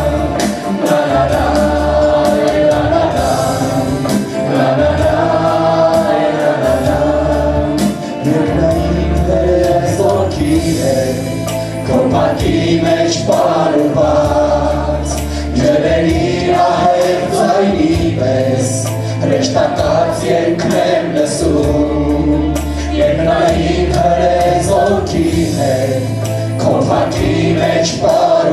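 Armenian worship song: a man singing lead into a microphone, with other voices singing along over instrumental accompaniment with a steady bass line.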